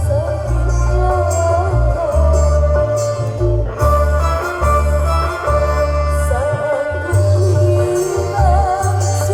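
Loud music with a heavy, pounding bass line under a wavering sung or melodic line, played through a large parade sound system.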